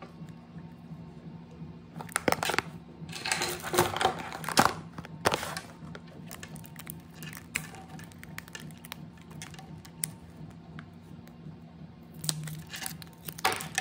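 Plastic packaging crinkling and rustling as a capsule-toy ball and the wrapped charm inside it are handled, in a few bursts with a steady low hum underneath.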